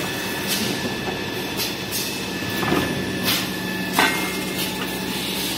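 Tissue-paper converting machinery running: a steady mechanical hum with a thin high whine, broken by irregular sharp clicks and knocks, the loudest about four seconds in.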